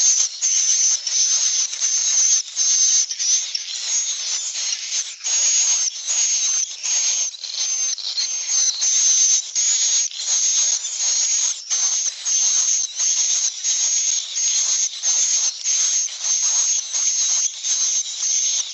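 A dense, unbroken stream of rapid, high-pitched chirps over a hiss, several short calls a second.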